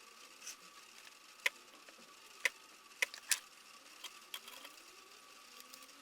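Sharp clicks and taps, about six of them spread over three seconds, of small hard parts being handled as a cordless vacuum's battery pack is put together, over a faint steady hum.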